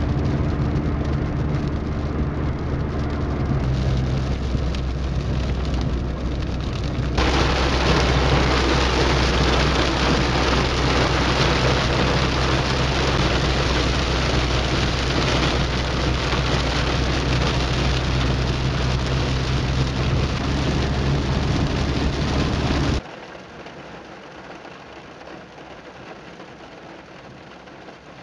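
Torrential rain pounding on a car's roof and windscreen while driving: a loud, dense hiss that starts suddenly about seven seconds in and stops abruptly near the end. Before it, a steady hum of the car running, and after it a quieter rain hiss.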